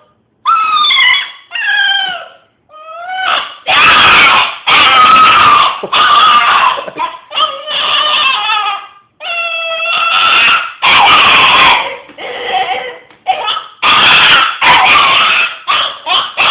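A pet dog howling in a long run of loud, wavering calls, one after another with short breaks; the loudest calls turn harsh and rough, the 'demon noises'.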